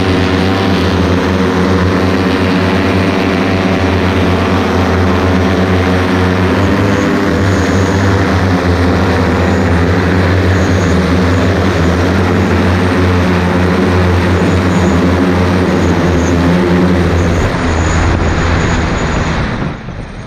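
Electric multirotor eVTOL's propellers and motors (EMAV single-seater) giving a loud, steady drone whose pitch shifts as the throttle changes. Near the end the sound drops off sharply as the craft comes down over the grass to land.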